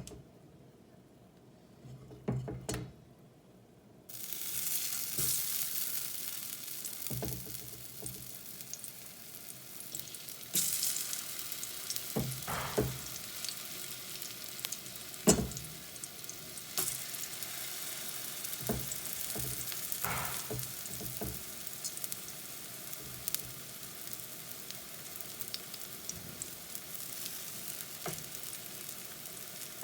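Battered plantain slices frying in a little vegetable oil in a pan: the sizzle starts suddenly about four seconds in and keeps up steadily. Several sharp knocks of a utensil against the pan cut through it, the loudest about midway.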